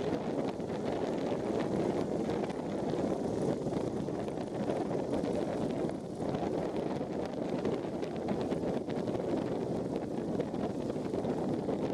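Steady wind rushing over the microphone in flight, with the aircraft's engine throttled back to idle for a descent.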